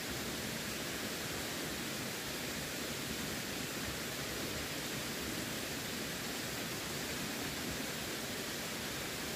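Running water rushing steadily, an even unbroken hiss with no splashes or changes.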